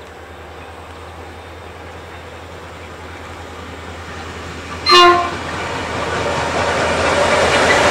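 A diesel-hauled grain train approaches, its locomotive engines and wheels running with a rumble that grows steadily louder. About five seconds in, the lead locomotive, Freightliner G-class G533, gives one short horn blast.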